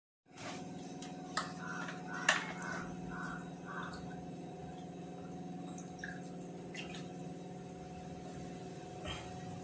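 A person drinking water from a plastic bottle: a couple of clicks from the bottle, then a series of quick swallowing gulps, over a steady low hum.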